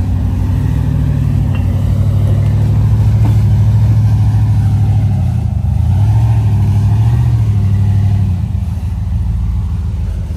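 Off-road vehicle's engine running under throttle, its note stepping up about a second in, dropping back near the middle, then rising again and easing off near the end.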